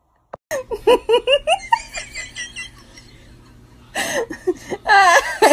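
A click, then a person bursting into hard laughter in quick, rapid bursts. About four seconds in, the laughter grows louder and higher-pitched.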